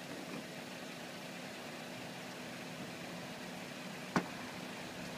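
A steady mechanical hum, like an engine idling, with a single sharp click about four seconds in.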